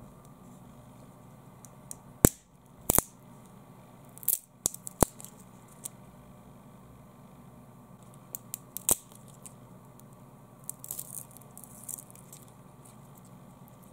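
A wooden pencil bent by hand until it snaps, with two sharp cracks a couple of seconds in. More snaps follow about four to five seconds in as the splintered halves are broken further, with a run of quick crackling of splintering wood near the end.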